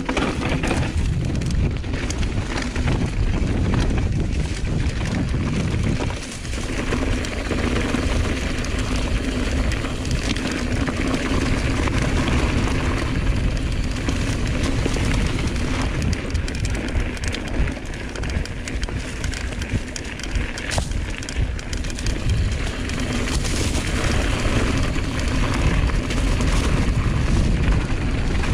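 Wind rushing over an action camera's microphone as a Giant Reign enduro mountain bike rides a forest trail at speed, with its tyres rumbling and the bike rattling and knocking over roots and rough ground. The noise eases briefly about six seconds in.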